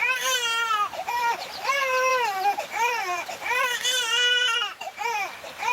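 A young child crying hard: a string of long, high wails about a second each, with short breaths between them.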